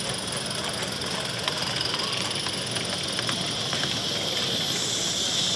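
Live-steam 16mm-scale model locomotive running along the track, its steam hissing steadily, with a few light clicks. The hiss grows louder near the end.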